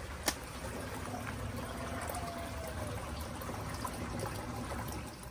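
Steady trickling of water circulating through a pump-fed backyard fish pond and its filter channel, with one sharp click about a third of a second in.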